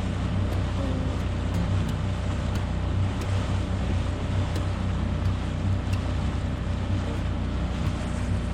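A small boat's outboard motor running steadily under way, with wind and water noise.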